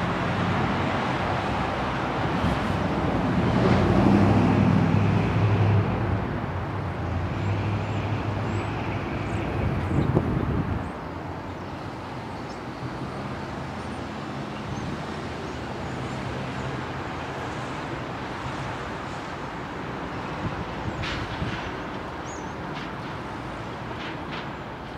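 Outdoor railway ambience of a steady engine rumble. It is loudest about four seconds in and drops away suddenly about eleven seconds in, leaving a quieter steady rumble.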